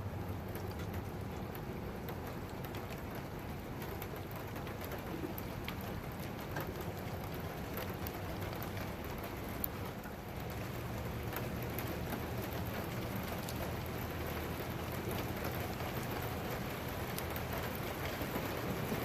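Steady rain falling during a thunderstorm, with scattered raindrop taps.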